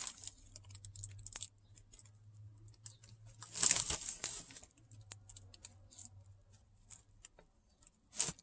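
Thin plastic bag rustling and crinkling close to the microphone, with scattered small clicks and taps from handling. One louder rustle comes about three and a half seconds in, and a short one near the end.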